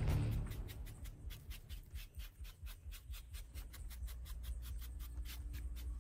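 Bristles of a paintbrush sweeping dust and grit off a carved slab, in quick scratchy strokes about four a second that thin out near the end.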